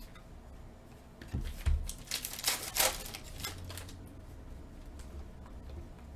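Stack of glossy trading cards being handled and flipped through by hand: a couple of soft taps, then a louder sliding rustle of cards against each other at about two to three seconds in.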